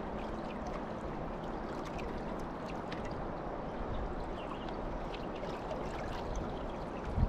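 River water lapping and gurgling against a fiberglass bass boat's hull, a steady wash with small scattered ticks.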